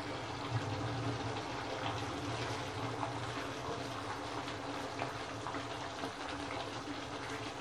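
Red chicken curry cooking in a pan on the stove: a steady hiss with faint crackles, over a low steady hum.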